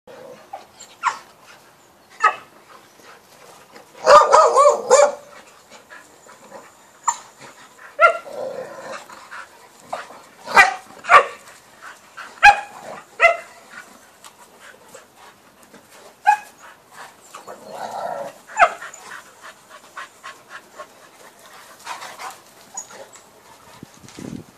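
Dogs barking in rough play, among them a young Cane Corso and Entlebucher and Appenzeller mountain dogs. Short, sharp single barks come every second or two, with a longer loud burst of barking about four seconds in.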